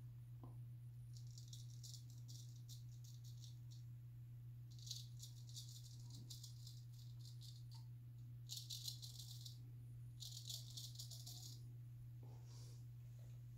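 Straight razor scraping through lathered stubble in several slow strokes, each a crackly, rasping hiss of about a second or so, with pauses between them. A steady low hum lies underneath.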